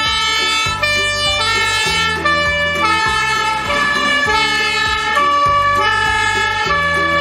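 Background music: a melody stepping through many notes over a bass line and a steady beat.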